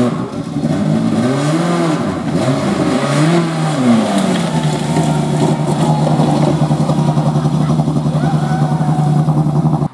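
Renault Clio rally car's engine, revved up and down twice and then held at a steady pitch with a fast pulse, on a car stranded with a rear wheel torn off. The sound cuts off abruptly at the end.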